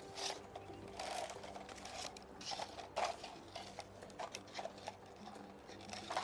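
Scattered soft clicks and rustles of cardboard letter cards and cut plastic bottles being handled and shifted along a string.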